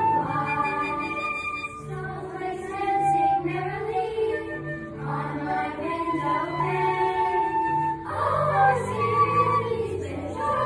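Children's choir singing with a flute playing along over a low bass accompaniment.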